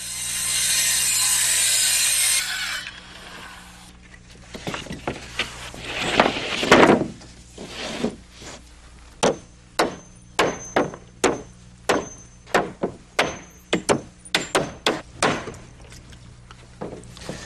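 Handheld circular saw cutting through an OSB roof sheet for about two and a half seconds, then the sheet being slid and set down on the roof with a scrape and thuds. After that, a steady series of hammer blows about two a second as nails are driven through the sheathing into the rafters.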